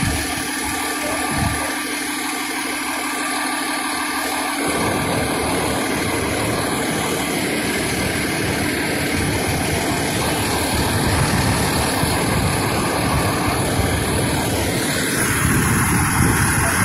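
Fire engine's diesel engine idling steadily close by, a low rumble that gets heavier about five seconds in.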